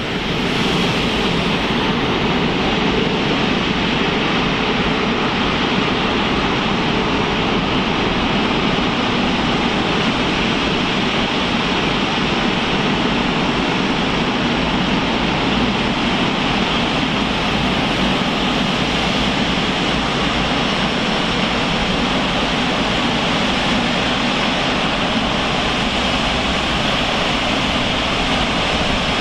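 Jet airliner engines running with a loud, steady roar, a faint high whine riding on top.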